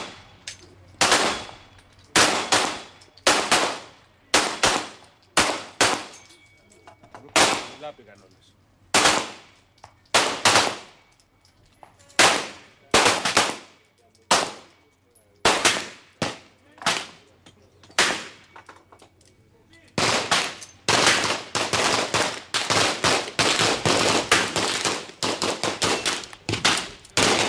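Handgun shots on a shooting range, one after another at about one a second with a short ringing tail after each, then from about twenty seconds in a faster, denser string of shots.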